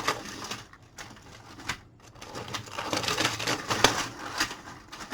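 Linked 3D-printed plastic track segments clicking and rattling as they are handled, with a dense stretch of clatter in the middle.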